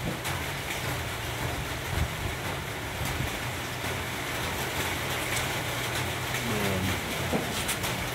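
A steady low mechanical hum over a constant hiss of background noise, with a short falling tone about six and a half seconds in.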